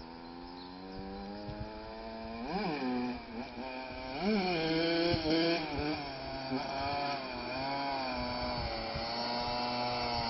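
Honda CR125's single-cylinder two-stroke engine running and growing louder, with two sharp throttle blips about two and a half and four seconds in, then revs rising and falling.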